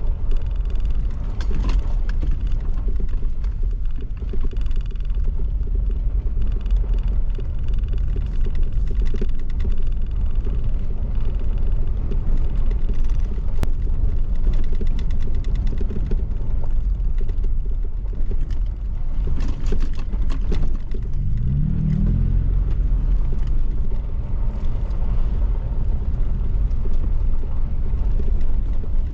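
Toyota Tacoma driving on a dirt road: a steady low rumble of engine and tyres, with scattered knocks and rattles. The engine's pitch rises briefly about three-quarters of the way through.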